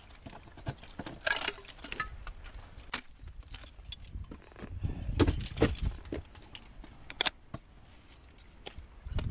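Ice-climbing tools knocking and scraping against the ice, with metal climbing gear clinking and jangling in between. Scattered sharp hits, the loudest a little over a second in, around five seconds in and past seven seconds.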